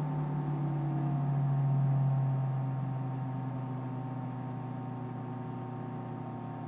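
PC case fans humming with a steady tonal whir while a touchscreen fan controller turns them down from 2400 rpm toward 1900 rpm; the hum drops a little in pitch and grows gradually quieter after about two seconds.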